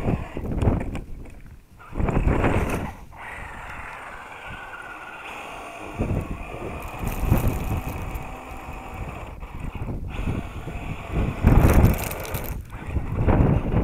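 An Axial SCX10 Honcho radio-controlled scale crawler's electric motor and gears whining as the truck climbs a loose sand bank, its spinning tyres throwing sand in uneven bursts of noise, the loudest near the end as sand sprays at the microphone.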